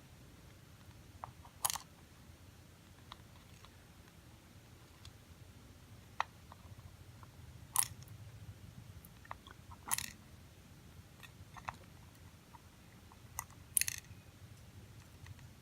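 Small sharp clicks and taps, about six spread irregularly over the stretch, as the pins, springs and tools of a Trimax padlock are handled while it is taken apart. A faint low hum lies underneath.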